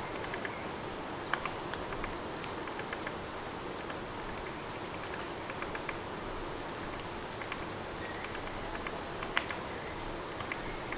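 Steady rain ambience, with scattered sharp ticks and short, very high chirps now and then.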